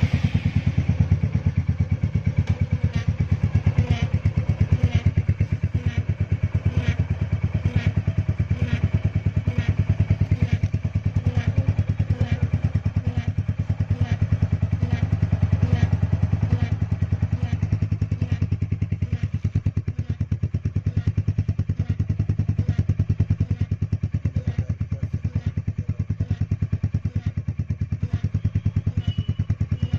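Royal Enfield Hunter 350's 349 cc single-cylinder engine idling steadily just after starting, a fast even thumping, with faint ticks about once a second in the first half.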